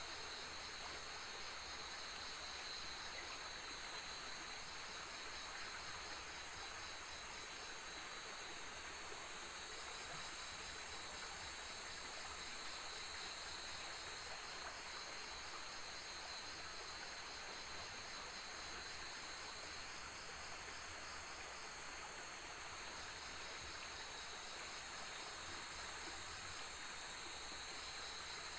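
Night insects chirring steadily in several high, unbroken trills; one trill pulses and drops out now and then.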